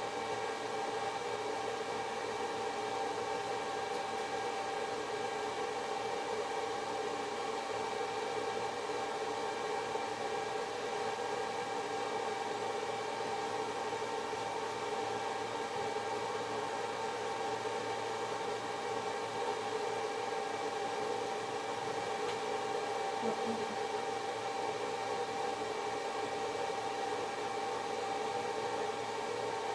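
A steady machine hum with a high whine over an even hiss, unchanging throughout.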